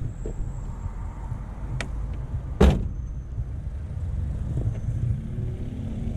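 Vehicle door slammed shut with one loud thump nearly three seconds in, a sharper click just before it, over the steady low rumble of an idling vehicle.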